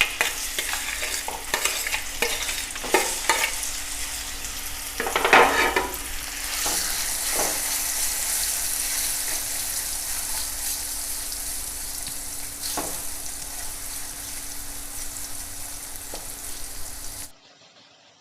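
Marinated prawns deep-frying in hot coconut oil in a kadai: a steady sizzle with a few scrapes and knocks of stirring. The sizzle swells about six seconds in and cuts off suddenly near the end.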